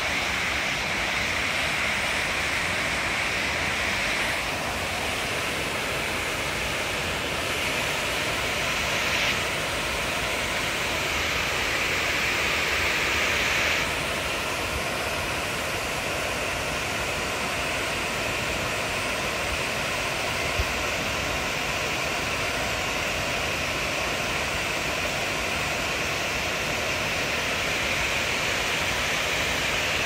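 River water rushing steadily over a broad sloping weir, a continuous hiss of falling, churning white water. Its tone shifts slightly twice.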